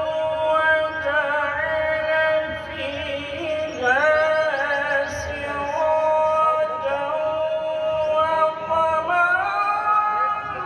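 A male qari reciting the Quran in melodic tajweed style: one long, ornamented line of held notes that slide between pitches, rising about four seconds in and again near the end.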